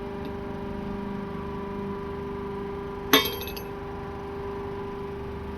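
Steady machine hum made of several even tones, with one sharp metallic clink about three seconds in that rings briefly.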